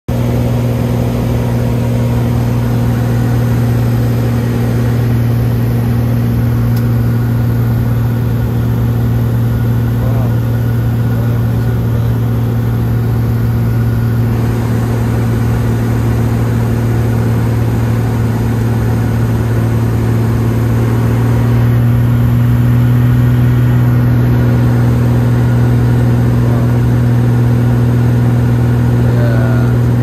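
Small propeller plane in flight, its engine and propeller running steadily and heard from inside the cabin as a loud, even drone with a low hum. It grows a little louder about two-thirds of the way through.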